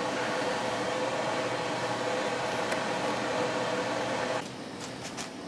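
Steady whirring hum of a running electric motor, which cuts off suddenly about four and a half seconds in, leaving a quieter background hum like a fan.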